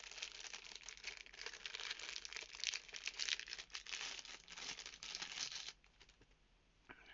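Thin plastic packaging bag crinkling and rustling as it is handled and opened, a dense run of small crackles that stops suddenly about six seconds in.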